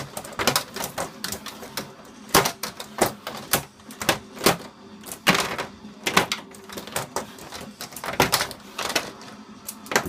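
Fighting robots clashing in a melee: irregular sharp clicks and knocks of hard objects striking, a few each second, over a faint steady hum.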